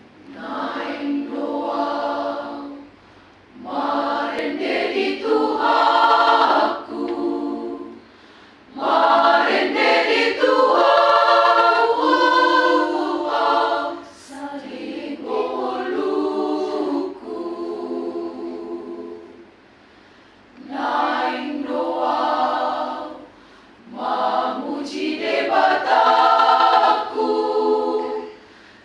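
A choir rehearsing, singing in sung phrases a few seconds long, each broken off by a brief pause before the next one starts.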